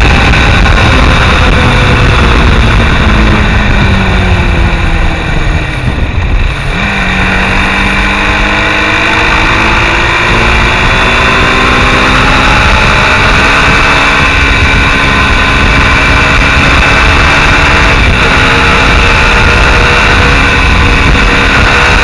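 Mondial SMX Enduro motorcycle engine under way, with heavy wind noise on the microphone. The engine note falls as the bike slows over the first few seconds and dips briefly about six seconds in. The pitch then jumps up and climbs steadily as it accelerates again.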